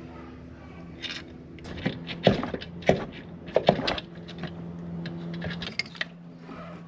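Metal clinks, knocks and scrapes of bolts and the valve cover being worked loose and lifted off an engine by hand, over a steady low hum.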